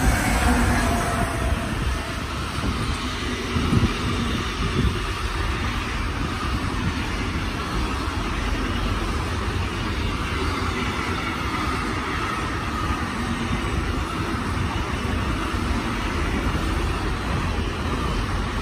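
Electric locomotive passing close by, its whine falling in pitch just at the start, then the steady rolling rumble and clatter of a long intermodal freight train's wagons, loaded with containers and semi-trailers, going past. A few sharper knocks come about four seconds in.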